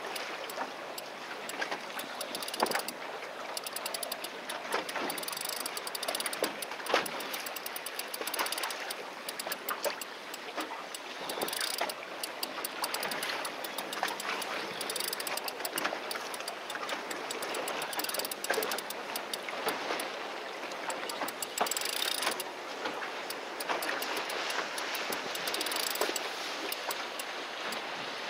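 Steady wind and sea noise on a small fishing boat, with a dense patter of fine clicks throughout and a few louder clicks now and then.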